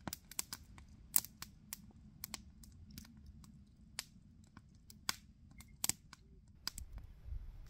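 Wood campfire crackling: irregular sharp pops and snaps, roughly three a second and uneven in loudness, with one louder snap about a second in.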